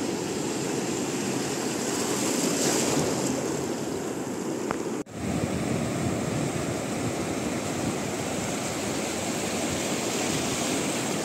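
Sea surf washing over the sand: a steady rush of breaking waves and foam. It cuts out for an instant about five seconds in.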